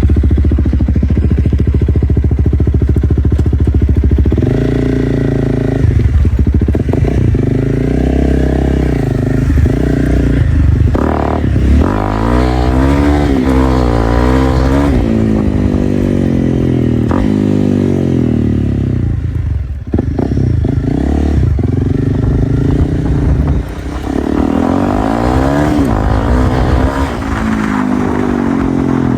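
Honda CRF300L's single-cylinder four-stroke engine through a straight-piped Dominator exhaust, loud. It runs steadily for about four seconds, then revs, its pitch rising and falling again and again, with brief drops in level near the 20- and 24-second marks.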